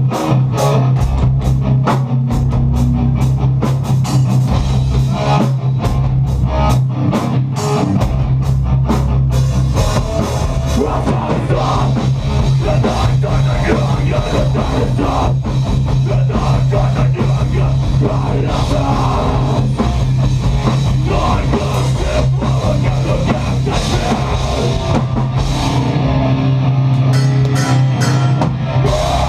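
Live heavy rock band playing loud distorted electric guitars, bass and drum kit, with fast, even drum hits in the first third.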